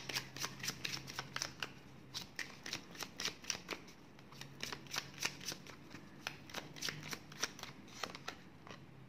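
A deck of tarot cards being shuffled by hand: a quick, irregular run of light card clicks and snaps, several a second, that stops just before the end.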